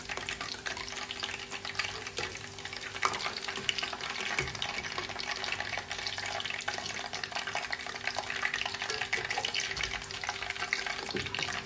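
Cauliflower florets deep-frying in hot oil in a steel pot: a steady, dense crackling sizzle, with a steady low hum underneath.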